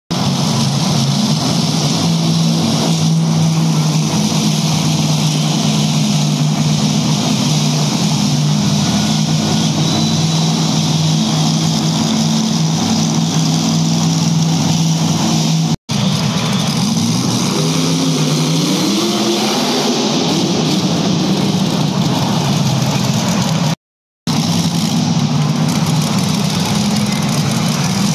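Monster truck engine running steadily and loudly, then revving up in a rising glide about two-thirds of the way through.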